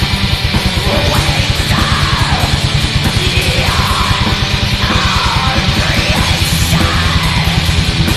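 Black metal: rapid, steady drumming under a dense wall of distorted guitars, with high shrieked vocals that fall in pitch about once a second.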